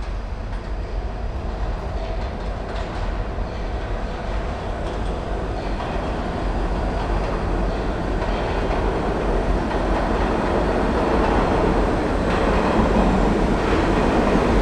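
New York City Subway G train approaching along the track into an underground station: the steady noise of its wheels running on the rails grows louder as it nears.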